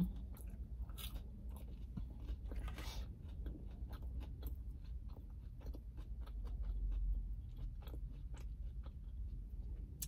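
Close-miked chewing of McDonald's chicken nuggets and fries: wet chewing with many small, sharp crunches and mouth clicks, over a low steady hum.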